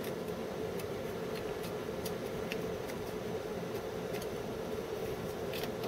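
Light, scattered clicks and scrapes of a USB dongle being fumbled blindly against the ports at the back of a PC, over the computer's steady hum.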